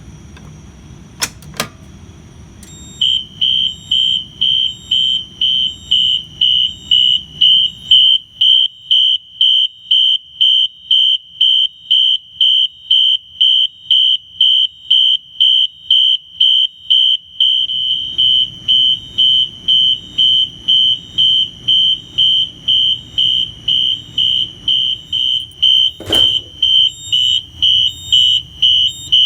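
Gamewell 7230 horn-strobe, a 4-wire rebrand of the Wheelock NS, sounding a high electronic horn tone coded in march time, about two pulses a second, driven by a Simplex 4008 fire alarm panel. Two sharp clicks come just before the horn starts, and one more comes near the end.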